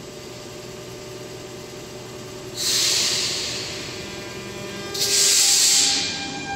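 TMB 2000-series metro train standing at the platform with a steady hum from its onboard equipment, broken by two loud bursts of compressed-air hiss. The first comes about two and a half seconds in and the second about five seconds in, each lasting about a second.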